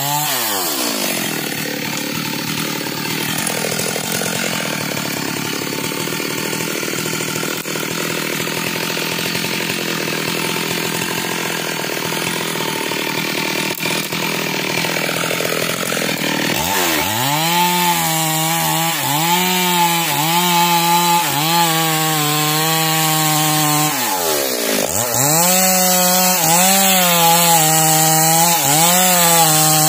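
Stihl two-stroke chainsaw running and cutting into the base of a standing tree trunk. About halfway through, its note drops to a lower pitch that wavers as the chain works through the wood. Twice the note sags sharply and climbs back.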